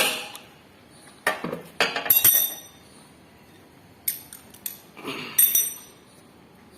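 Metal tools and parts clinking together in several sharp, ringing clinks: a few about a second in, a quick cluster around two seconds, and more from about four to five and a half seconds.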